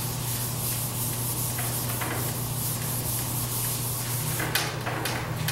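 Whiteboard eraser wiping marker off a whiteboard in long strokes over a steady low hum, with a few short clicks near the end.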